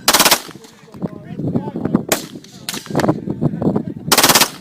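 Full-auto gunfire: a short rapid burst at the start, two quick single shots a little past two seconds in, and another short rapid burst about four seconds in.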